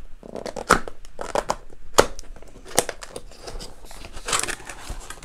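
Cardboard box being turned over and handled: fingers rubbing and scraping along the cardboard, with sharp taps and knocks, the loudest about two seconds in, and a longer scratchy rub near the end.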